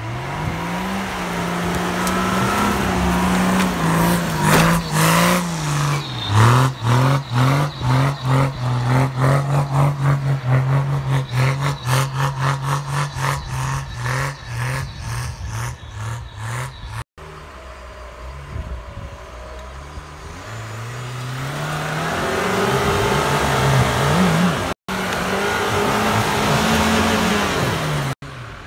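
Off-road 4x4 SUV engines revving hard under load while driving through deep snow. From about six seconds in, the engine and the noise pulse about twice a second. The sound breaks off abruptly twice and another engine note builds up.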